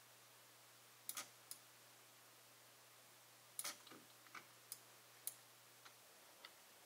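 Faint, irregular button clicks from the TourBox Neo editing controller and mouse being pressed, about ten over several seconds, some in quick pairs.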